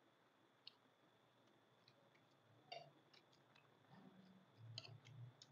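Quiet eating: a handful of faint, scattered clicks and smacks from chewing and a spoon against a plate.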